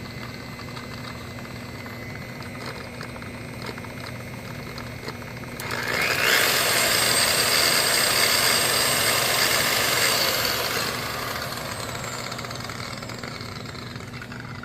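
Makita 9237CX3 7-inch variable-speed polisher running with a loud gear head, a noise the owner traces to dry, ungreased gears. About six seconds in it grows much louder, with a steady high whine, for about five seconds, then eases back down.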